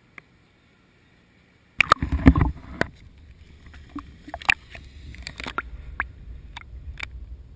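Near silence, then about two seconds in a burst of water splashing and sloshing right at a GoPro camera held at the surface, followed by muffled underwater gurgling with scattered sharp splashes and knocks.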